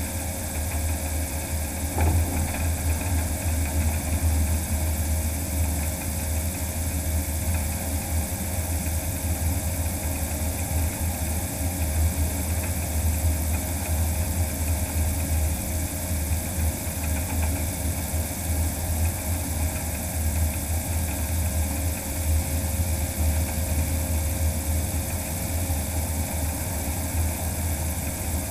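Electric-powered DHC-2 Beaver floatplane taxiing on the water, its magni500 electric motor and propeller running steadily. The sound is a constant low rumble with a steady hum above it.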